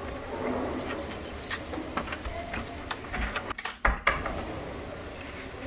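Metal door hardware rattling and clicking as a hotel door's swing-bar security latch is worked from outside with a slotted do-not-disturb sign, with a sharp louder click about four seconds in.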